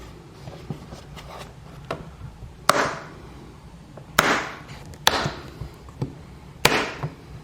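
Push-pin fasteners being pressed into holes drilled in a side-by-side's lower door panel, with the centre pins pushed home to lock them. Four sharp snaps or knocks come roughly a second apart, each with a short ring, with a fainter click before them.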